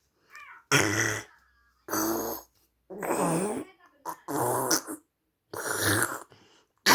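A person making a string of weird, rough throaty vocal noises: six short bursts, each about half a second long and roughly a second apart.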